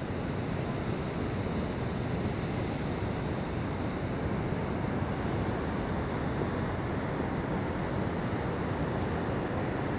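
Steady roar of rushing water from the Trümmelbach Falls, an even rushing noise that holds the same level throughout.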